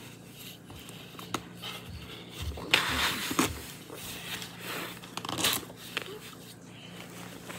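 Cardboard snack box being handled and pried open by hand: scraping, rustling handling noise in a few irregular bursts, the loudest about three seconds in and another about two seconds later.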